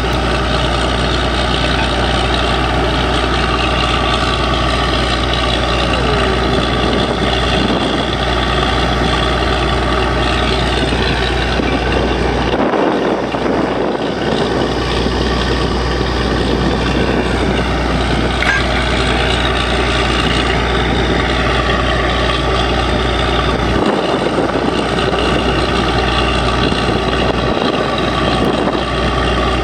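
Truck-mounted borewell drilling rig running: a loud, steady engine and machinery drone with a constant hum.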